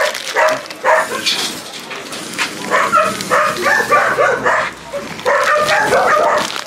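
Many dogs barking, yipping and whining over one another, excited at being handed food.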